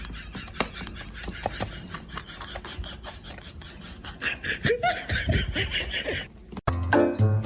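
A person laughing and snickering over noisy clip audio with scattered clicks, cut off abruptly near the end by music with a flute-like melody.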